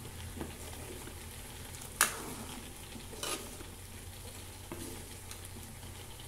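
Sambar bubbling at a boil in a pot while a metal ladle stirs it and lifts and pours it. There is a sharp clink of the ladle against the pot about two seconds in, and a softer one a second later.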